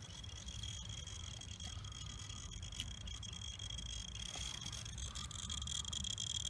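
Quiet background: a steady high-pitched drone over a low rumble, with one faint click from a tool on the spark plug about three seconds in.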